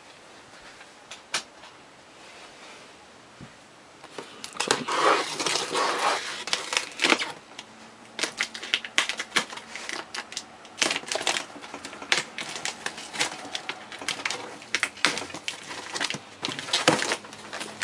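Cardboard shipping box being opened and hands rummaging through foam packing peanuts: irregular clicks, scrapes and crinkling rustles. It is sparse at first and turns into a busy run of handling noise from about four seconds in.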